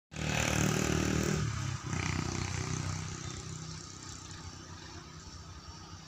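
A motor engine running, loud at first, then fading away steadily over about four seconds.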